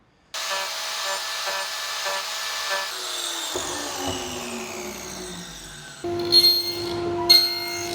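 An electric woodworking power tool running as it cuts wood, then switched off and spinning down with a falling whine. About six seconds in, a machine starts up again with a steady hum and the noise of cutting.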